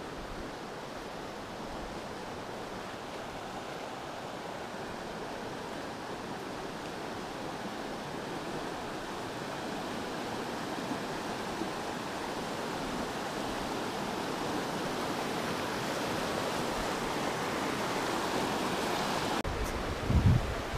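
Steady rush of river water over riffles, slowly growing louder as the camera nears the Pecos River. Near the end it changes abruptly to brief low rumbles of wind on the microphone.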